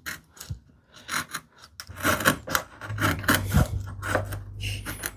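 A hand tool shaving and scraping wood in a groove, in short repeated strokes: a few at first, then a quick busy run from about two seconds in, smoothing out small steps along the groove's bottom.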